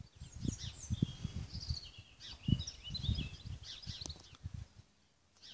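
Small birds singing in quick, chirpy, warbling phrases that stop about four and a half seconds in, over irregular low rumbles of wind buffeting the microphone.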